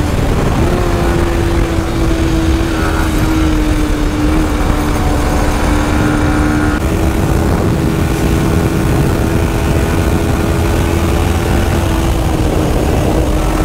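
Yamaha sport motorcycle running at high speed: a steady engine note over heavy wind rush on the rider's camera microphone. The engine note shifts slightly about seven seconds in.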